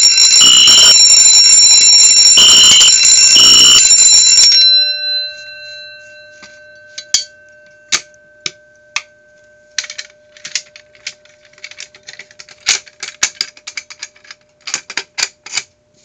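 Fire alarm board in alarm: an Edwards Adaptabel bell ringing steadily under a Wheelock NS horn sounding in the three-pulse temporal pattern. Both cut off about four and a half seconds in and the bell's tone rings out slowly, followed by a series of clicks and knocks.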